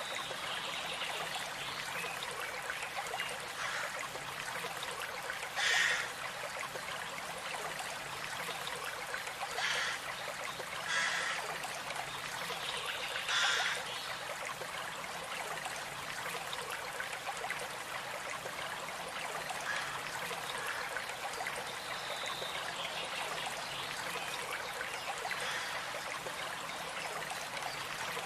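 Small stream trickling and babbling steadily, with a few brief louder bursts of splashing.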